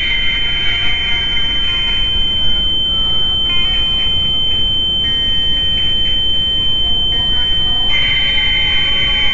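A loud, steady high-pitched ringing tone held throughout, over a low rumble and slowly shifting sustained notes: a tense dramatic film soundtrack.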